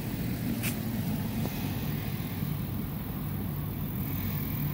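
Steady low outdoor rumble, with a short rustle about two-thirds of a second in.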